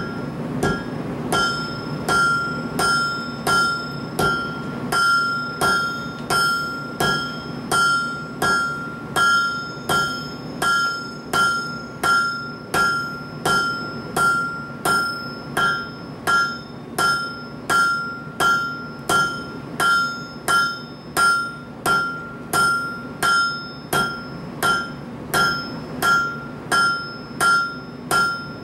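Hand hammer striking a red-hot steel bar on an anvil in a steady rhythm, about one and a half blows a second, each blow setting the anvil ringing with a clear tone.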